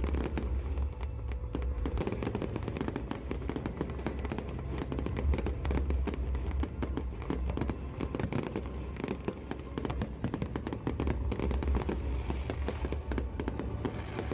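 Fireworks display: a dense, continuous run of bangs and crackles, with a steady low rumble underneath.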